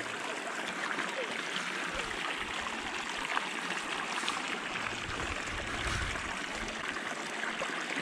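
Small mountain stream running over a shallow riffle: a steady rush and trickle of water, with some low rumbling on the microphone about five seconds in.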